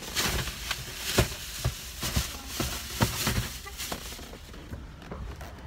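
Handling noise from a phone carried against a coat: irregular knocks and rubbing, about two a second, thinning out near the end.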